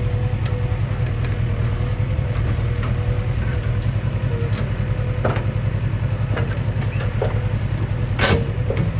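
JCB 3DX backhoe loader's diesel engine running steadily with a rapid low throb and a faint steady whine. A few light knocks come in the second half, and a sharper clank comes near the end.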